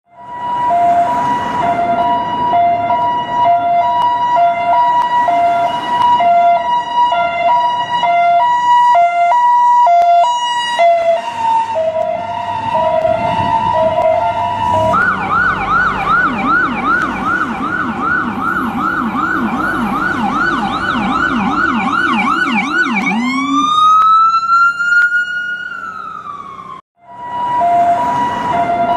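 US ambulance electronic siren cycling through its modes: a steady two-tone hi-lo alternation, then about halfway a fast yelp at roughly two to three sweeps a second, then a single slow rising-and-falling wail. It cuts out briefly near the end, and the hi-lo alternation starts again.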